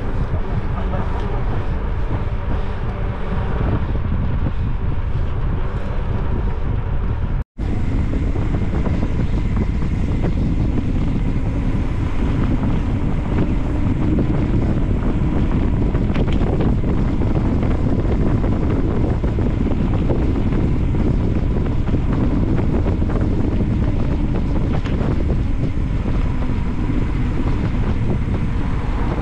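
Steady wind rumble buffeting the microphone, as from riding along, cutting out for an instant about seven seconds in.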